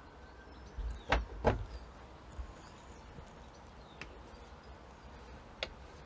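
Two sharp clicks a third of a second apart, about a second in, then two fainter clicks later: a small door or latch being handled.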